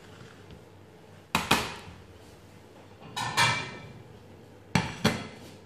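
Kitchenware being handled on a stainless-steel counter. Two knocks come about a second and a half in, then a ringing metallic clatter around three seconds in, then two more knocks near the end.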